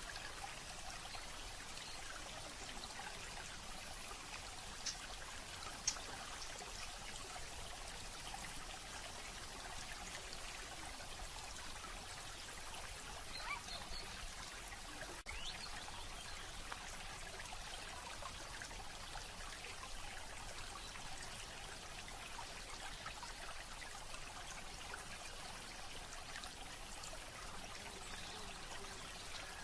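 Steady sound of running water, like a small stream, with two short clicks about five and six seconds in.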